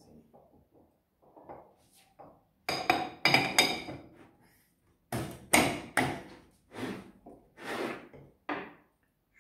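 Metal parts of a Multilith 1250 compressor knocking and clinking as the housing and its pulley cover are handled and fitted together. There is a quick run of four ringing clinks about three seconds in, then single knocks every half second to a second.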